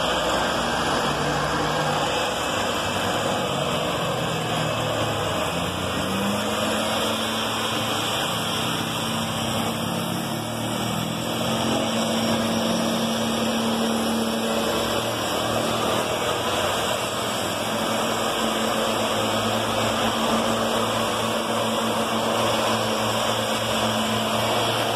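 Engine of a motorized backpack mist-blower sprayer running steadily with a rush of air as it blows disinfectant mist. About five seconds in it revs up to a higher, steady speed.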